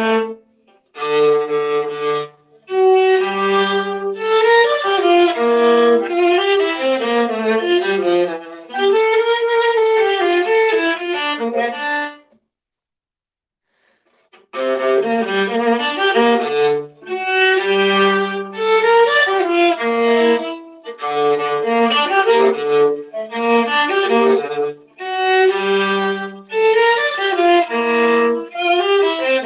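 Solo viola, bowed, playing phrases of sustained notes with short breaks between them. The lowest notes reach down to the viola's bottom string. The playing stops for about two seconds a little before halfway, then resumes.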